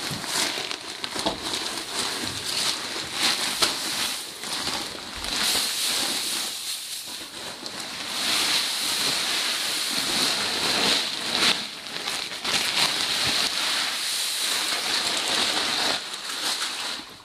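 Chopped straw for oyster mushroom substrate pouring out of a sack into a wooden bin: a steady rustling hiss full of small crackles, stopping suddenly near the end.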